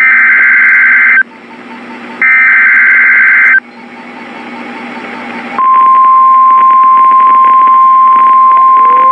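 NOAA Weather Radio emergency alert: the last two harsh data bursts of the SAME digital header, each a little over a second long, with radio hiss between them. About five and a half seconds in, the steady 1050 Hz warning alarm tone starts, announcing a new warning. A rising tone joins the alarm near the end.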